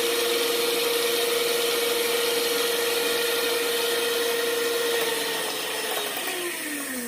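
Electric stand mixer beating cake batter in its stainless steel bowl, its motor running with a steady whine. About five seconds in it is switched off, and the whine falls in pitch as the motor winds down.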